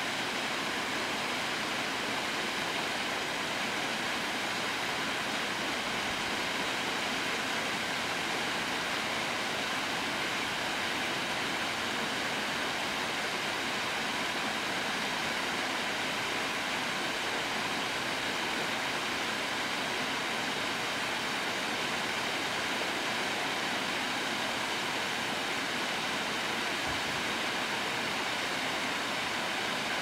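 Waterfall spilling in several streams down a stepped stone dam into a pool: a steady, even rush of splashing water.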